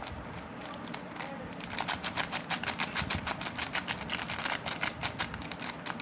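Quick irregular tapping and clicking from hands handling soap packaging in an unboxing, sparse at first and growing dense, several taps a second, about two seconds in.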